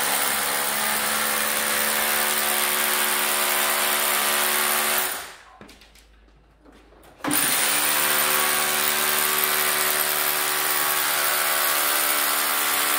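Electric power drill running at steady speed, with a steady motor whine under the drilling noise; it stops about five seconds in and starts again about two seconds later, then runs on.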